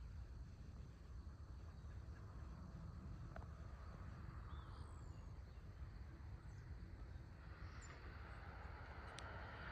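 Quiet rural dawn ambience: a steady low rumble with a few faint bird chirps. About three-quarters of the way through, a faint rushing noise of a distant vehicle begins to build.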